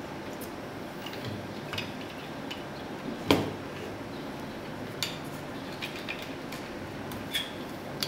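Parts of a copy Apex Pro-style knife sharpener clicking and clinking as they are fitted together by hand, metal guide rod against frame. Scattered light clicks, with one sharper knock about three seconds in.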